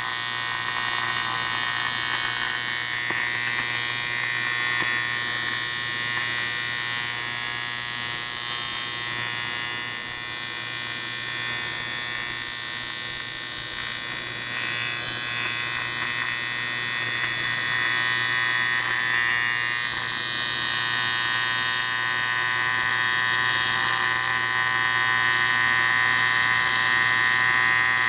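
AC TIG welding arc buzzing steadily as aluminium is built up on a Harley twin cam cylinder head, with the tone strengthening a little near the end.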